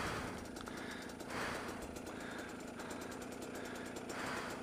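Dirt bike engine idling steadily under the rider's heavy breathing, a breath about every second and a half.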